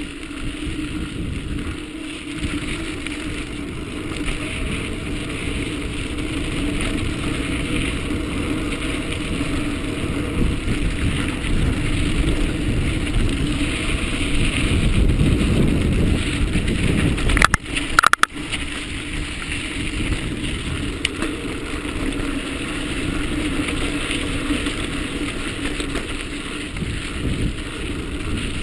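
Wind rushing over a mountain bike's camera microphone, with the tyres rolling on sandy dirt singletrack and the bike rattling. The rumble builds gradually to its loudest a little past the middle, where a sharp knock breaks it before it settles again.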